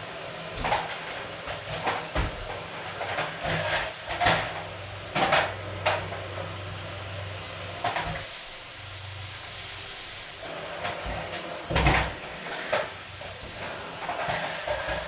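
Irregular knocks and clatters of household things being handled and set down while cleaning, over a steady low hum and a faint hiss.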